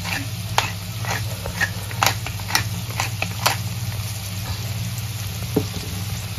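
Hand-twisted pepper mill grinding black pepper over a pan: a run of irregular sharp clicks for about three and a half seconds, then one more click near the end, over a steady low hum.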